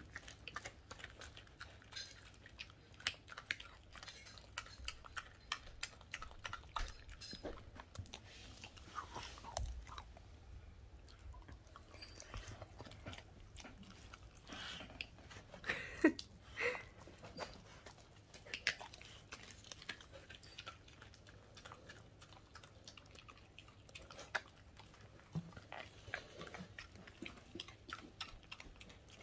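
Welsh corgi chewing and biting into a whole raw chicken: irregular wet crunches and clicks of teeth, with the loudest crunches about sixteen seconds in.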